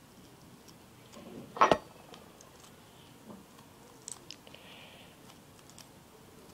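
One short, forceful blow of breath about a second and a half in, blowing into a cracked egg shell to push the egg out; a few faint clicks follow.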